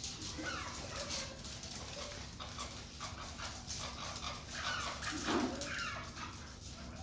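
Chukar partridge calling: a series of short calls that slide downward in pitch, bunched together about two-thirds of the way through.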